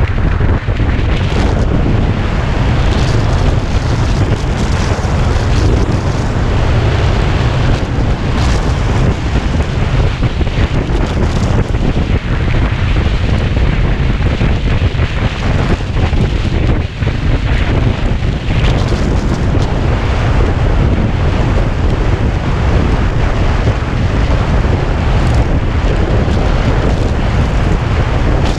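Loud, steady wind rushing and buffeting over the microphone of a camera on a Kawasaki Ninja 250 moving at road speed, with a few brief stronger gusts.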